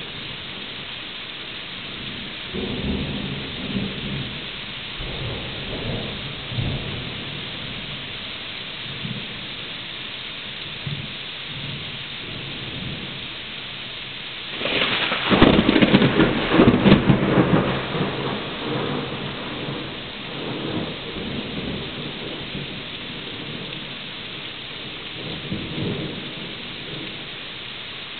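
Steady rain with rolling thunder: low rumbles a few seconds in, then a much louder crackling peal about halfway through that rumbles on for several seconds, and a last smaller rumble near the end.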